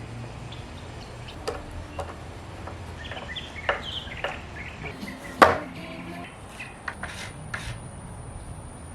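Scattered wooden knocks and handling noises from pallet boards being worked, with one sharp, loud knock about five and a half seconds in.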